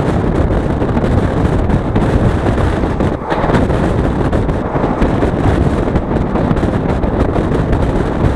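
Steady wind buffeting the microphone over the running noise of a moving passenger express train, heard from outside the side of a coach.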